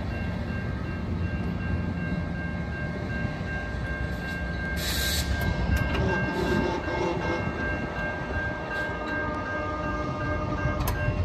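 GO Transit commuter train rumbling steadily as it pulls away past a level crossing, with the crossing's warning bell ringing in steady high tones over it. About five seconds in comes a short hiss, and the crossing gate arm is lifting back up around six seconds in.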